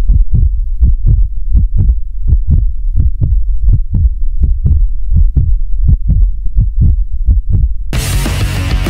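Intro music: a deep, even thudding beat, about two to three thumps a second, then loud full music comes in about eight seconds in.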